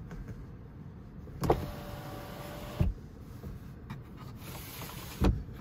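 Electric moonroof motor of a 2001 BMW 540i (E39) starting with a click and running with a steady whine for about a second and a half, stopping with a thump as the glass panel reaches its stop. Near the end comes a short sliding hiss and a second thump, as the sunshade is pushed shut by hand.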